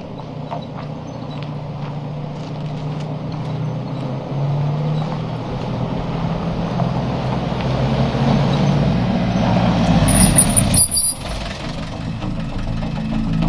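Vintage car engine running and growing louder as the car approaches, with a brief high squeal about ten seconds in; the sound breaks off suddenly and gives way to a steadier engine hum, as heard from inside the car.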